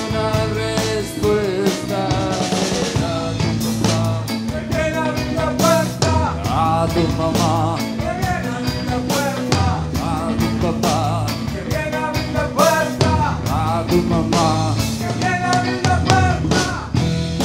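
Live rock band playing: a man singing over electric guitars, electric bass and a drum kit.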